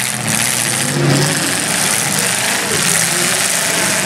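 Demolition derby cars' engines running and revving together in a loud, steady din.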